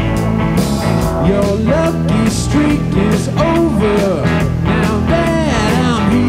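Blues-rock band playing: guitars, bass and drum kit at a steady beat, with a lead line full of sliding, bending notes.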